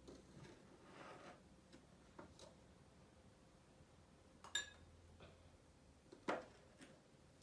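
A small spoon clinking against a glass jar and a small bowl while baking soda is scooped into water: a few light taps, with two sharper clinks about four and a half and six seconds in, the first ringing briefly. Otherwise near silence.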